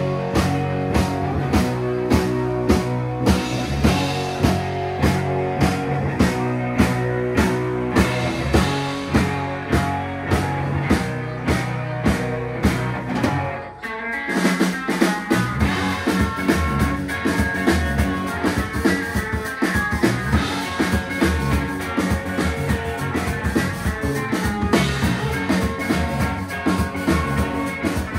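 Live rock band playing: electric guitars, electric bass and a drum kit with a steady beat. About halfway through the band stops for a moment, then comes back in with busier drumming.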